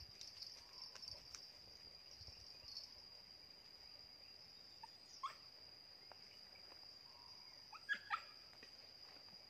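Near silence in a field: a faint, steady, high-pitched insect drone, broken by one short rising call about five seconds in and a few more short calls about eight seconds in.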